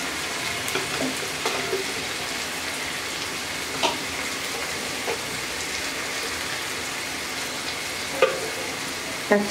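Sliced onions, green chillies and spice paste sizzling steadily in hot oil in a karahi, with a few sharp pops from the oil.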